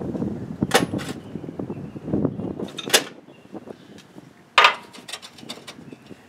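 Hand tools clanking and knocking against a truck's rear shock absorber mount while the upper shock bolt is worked loose: three sharp knocks, the loudest past the middle, with uneven rattling and handling noise between.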